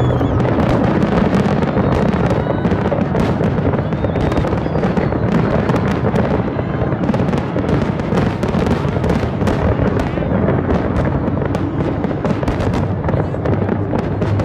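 Fireworks display going off without pause: a dense barrage of shell bursts and booms, with many sharp cracks and crackles over a continuous low rumble.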